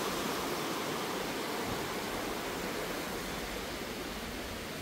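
A river flowing: a steady rush of running water, easing off slightly toward the end.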